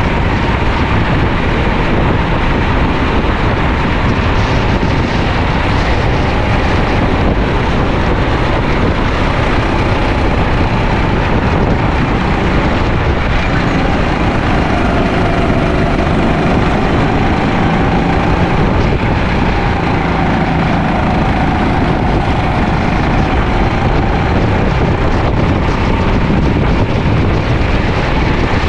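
Sodi LR5 rental kart's four-stroke engine running at racing speed, its pitch rising and falling with the throttle through the corners, with wind buffeting the microphone.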